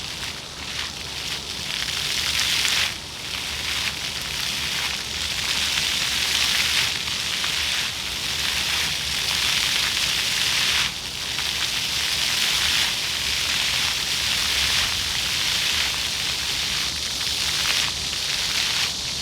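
Floor fountain jets spraying and splashing onto wet paving, a steady hiss of falling water. The sound drops suddenly twice and builds back up as the jets change.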